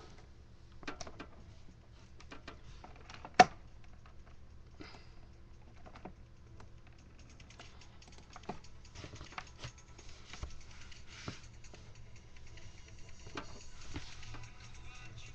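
Fingers tapping the pads and buttons of a light-up pad-grid MIDI controller: irregular soft clicks and taps, with one much louder knock about three seconds in, over a faint low hum.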